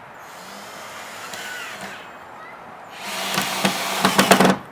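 Cordless drill driving screws into wooden boards: a short, lighter run, then a louder run about three seconds in that ends in rapid clicking.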